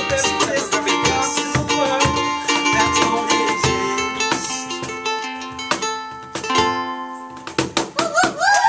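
Ukulele strummed in chords, thinning out and fading near the end as the song closes; a few whoops break in right at the end.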